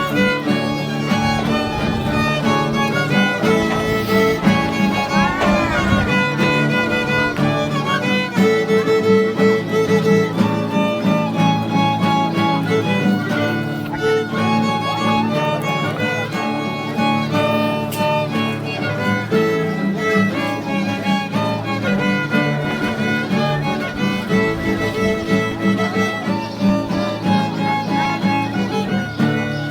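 Violin music with guitar accompaniment, a lively tune played continuously for a traditional dance.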